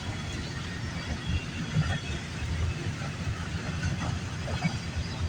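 CN freight train's cars rolling past at low speed: a steady low rumble of wheels on rail with irregular low knocks.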